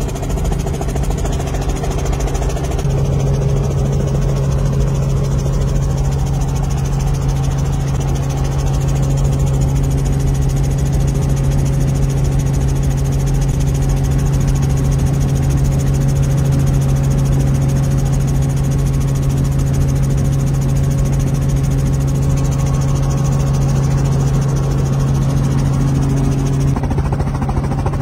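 Light helicopter's engine and rotor drone heard inside the cabin, a steady low hum that grows a little stronger about three seconds in and eases back shortly before the end.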